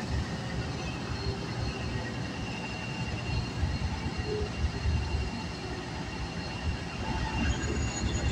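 City bus in motion, heard from inside the passenger cabin: a steady low rumble of the engine and drivetrain, with a faint steady high-pitched whine above it.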